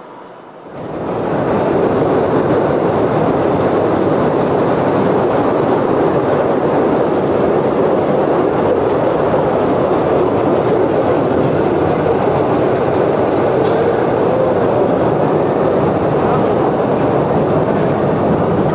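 Cave tourist train running on its rails, heard from on board an open carriage: a loud, steady noise that swells in over the first second or two.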